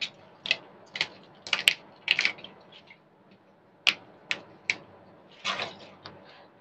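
Water spinach (kangkung) being broken up by hand: a string of about ten crisp snaps and crackles at irregular intervals as the stems are snapped and the leaves stripped.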